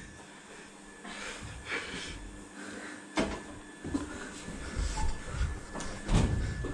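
Scattered knocks and soft thumps, with rustling, as people move about a room swinging pillows; one sharp knock about three seconds in and a cluster of dull thumps near the end.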